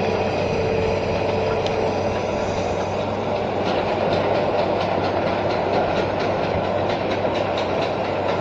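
Hitachi Zaxis 210F amphibious excavator running steadily with a low engine hum, travelling on its pontoons; from a few seconds in, a rapid regular clacking, about four a second, of its pontoon track chains turning.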